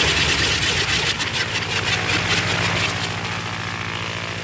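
Twin radial engines of a Consolidated PBY Catalina flying boat in flight. One engine runs rough with irregular pops, then cuts out about three seconds in, and the sound drops to the remaining engine running steadily. This is an engine failure in flight.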